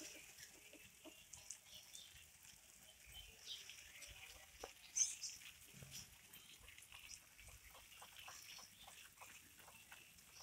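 Faint crackling of dry fallen leaves as a cat walks over them, a run of small ticks in the second half, with one short high-pitched chirp about five seconds in.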